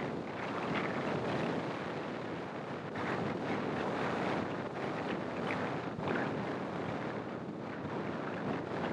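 Wind rushing over the microphone of a camera mounted on the outside of a moving car, with road noise from the drive underneath.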